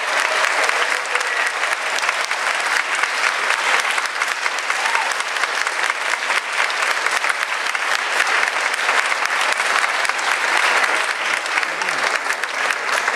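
Audience applauding steadily, the dense patter of many hands clapping at once.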